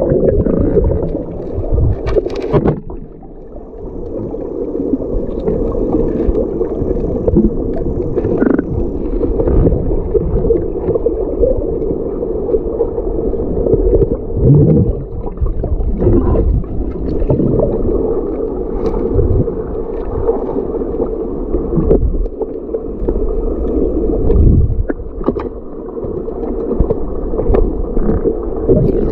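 Muffled underwater noise picked up by a camera submerged in a river: a steady low rumble with a constant hum, broken by scattered clicks and knocks.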